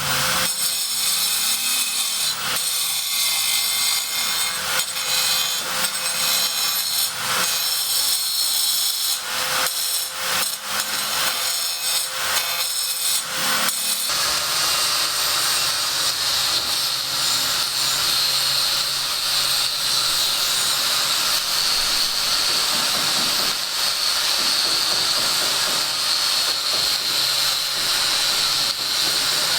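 Power-tool work: for about the first half, a rasping cutting sound in quick uneven strokes, then an abrupt change to a steady, high hiss-like whine of a tool running continuously.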